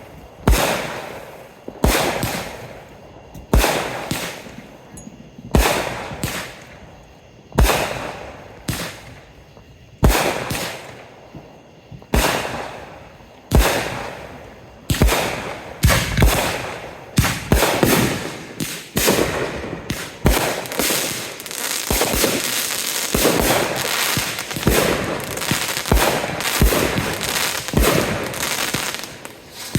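Consumer aerial fireworks going off: a run of loud bangs, roughly one every second or so, each trailing off in crackle. About two-thirds of the way through they give way to a dense, continuous crackling barrage.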